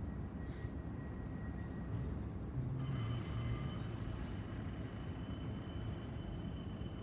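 A CAF Urbos 100 tram standing at a platform with a low, steady hum. About three seconds in, a steady high-pitched electrical whine starts up and continues.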